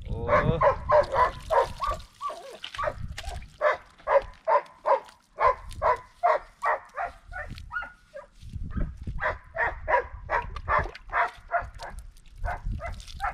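Dog barking over and over in quick, high-pitched yelps, two or three a second, with a couple of short pauses: a tied-up dog barking frantically to be let loose.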